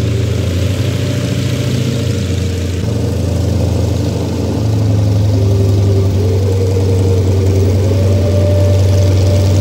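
Yak-55M aerobatic plane's nine-cylinder radial engine running at taxi power, a steady low-pitched drone that grows louder about halfway through as the plane comes closer.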